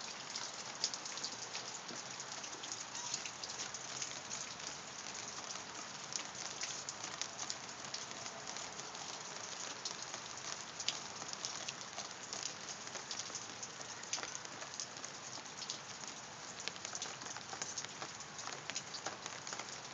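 Steady rain falling, with a constant hiss and many small drop ticks striking surfaces close by.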